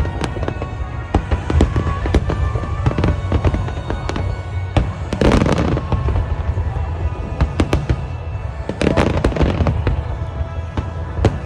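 Fireworks display: a rapid run of crackling bangs from bursting shells over a steady low rumble, with heavier bursts about five and nine seconds in.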